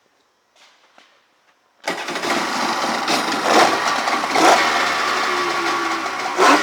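1995 Polaris SLT 750 jet ski's two-stroke engine starting: quiet at first, it suddenly catches about two seconds in and runs loudly, surging briefly three times.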